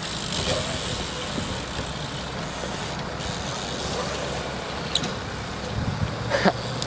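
BMX bikes riding on concrete skatepark ramps: a steady rumbling hiss of tyres with a few sharp clicks about five seconds in and again near the end.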